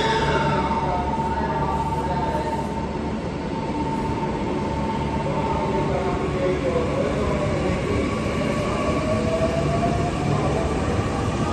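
JR Central 315-series electric multiple unit pulling away from the platform. A steady high tone holds for about the first six seconds; then the traction motor whine rises in pitch as the train starts to move and picks up speed.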